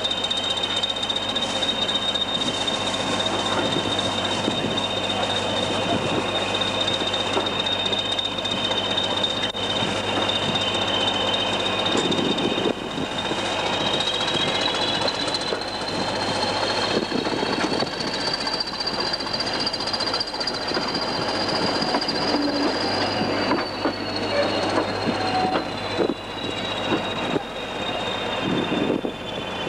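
A pair of Class 20 diesel locomotives pulling a train away, heard from a carriage window: a steady high turbocharger whistle rises in pitch partway through, holds, then falls back, over the running rumble and clicks of the coaches' wheels on the track.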